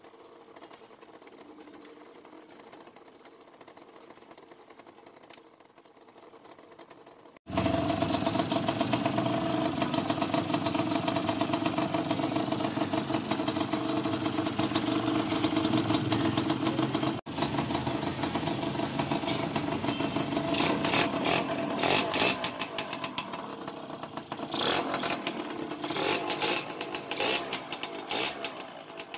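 Yamaha RS100's single-cylinder two-stroke engine running after its overhaul, with a fast, crackly exhaust beat. It cuts in abruptly after several seconds of faint background hum. Engine speed rises and falls in the later part, and the sound fades near the end.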